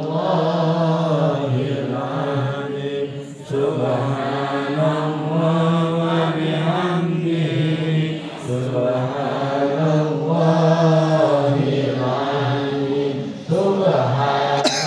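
Men's voices chanting an Islamic devotional prayer together in long, drawn-out phrases, with a brief pause every four to five seconds.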